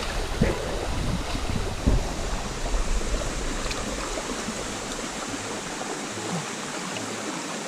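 Shallow stream water running steadily over rocks, with a few low splashing knocks in the first two seconds from people wading through it.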